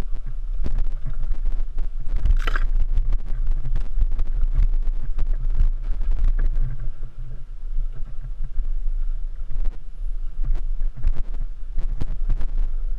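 Dual-sport motorcycle ridden off-road over rough ground: a steady low rumble with wind buffeting the microphone and frequent short knocks and rattles from the bike and the terrain.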